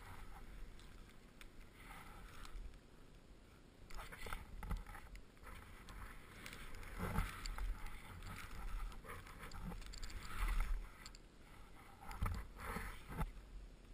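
Skis swishing and hissing through deep powder snow in a run of turns, louder swooshes coming every two to three seconds, with a low wind rumble on the helmet-mounted camera's microphone.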